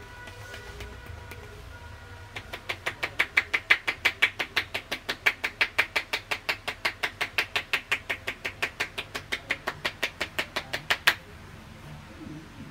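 Hands slapping the body in quick percussive massage strokes, about five a second. They start a couple of seconds in, run for about nine seconds and stop suddenly after a last sharp slap.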